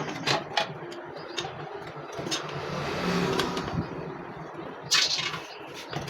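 Irregular clicks and knocks of parts and hand tools being handled during motorcycle engine fitting, with a brief rush of noise about three seconds in and a sharper clatter of clicks near five seconds.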